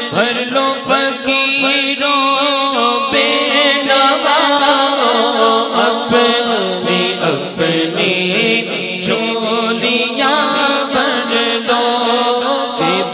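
A man singing a naat without instruments into a microphone: a long wordless passage whose pitch wavers and turns in ornamented runs, over a steady low held tone.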